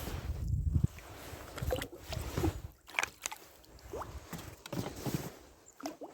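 Small rowing boat on the water: low rumbling handling noise with a few short knocks and splashes as a pike tip-up line that has unwound is pulled in by hand.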